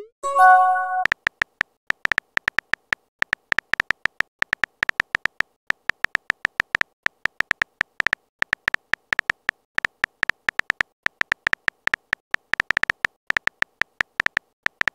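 Rapid, irregular clicks of a phone's on-screen keyboard as a text message is typed. Just after the start, a short chime of a few steady notes marks the message being sent.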